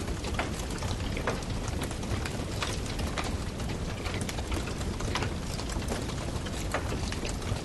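Wood fire crackling: a steady hiss broken by irregular sharp snaps and pops, about one or two a second.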